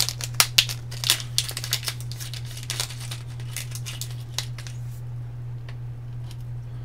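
Small plastic zip-top bag of LEDs crinkling as it is handled and opened and an LED is taken out. The crackles come thick over the first three seconds and then thin out, over a steady low hum.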